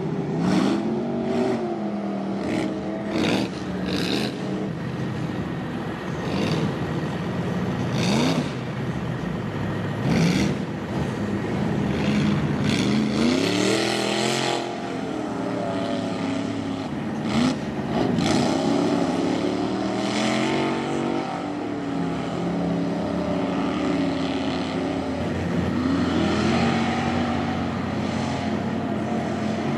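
Mud truck engines revving hard, their pitch climbing and dropping again and again as they accelerate through a mud pit. Sharp spattering noise comes with the flying mud.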